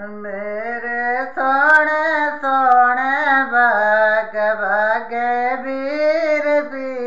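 A woman singing unaccompanied: a slow Hindi devotional folk song about Rama's exile, with long, held, wavering notes.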